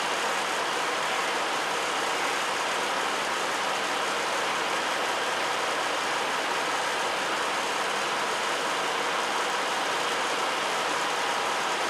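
Double-decker bus engine idling steadily at the stand, an even, unchanging running noise.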